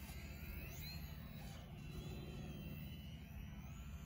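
Small electric RC plane, a HobbyZone Sport Cub S 2, flying overhead; its motor and propeller give a faint high whine that rises and falls in pitch as it flies.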